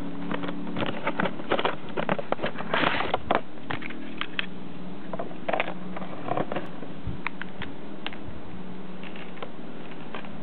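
Irregular clicks and rustles of a plastic Gaia Memory toy being handled, busiest in the first four seconds. A steady low hum runs underneath.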